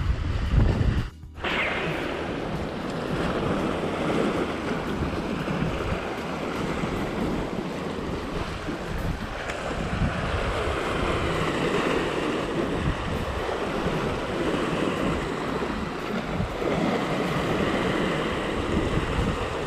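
Sea surf washing in, a steady rush that swells and eases slowly. Wind buffets the microphone for about the first second, then the sound cuts out briefly.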